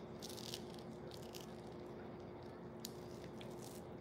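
Close-up mouth sounds of someone eating fruit: wet chewing with a few short smacks and clicks scattered through, over a faint steady hum.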